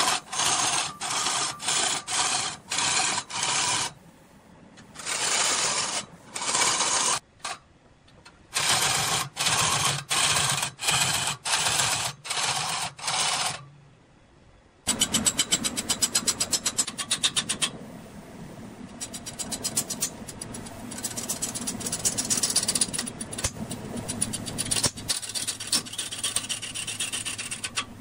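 Rasping or scraping strokes on wood, about two a second, in runs with short pauses. About halfway they stop, and a woodworking machine runs steadily with a fast, fine chatter, joined near the end by a low hum.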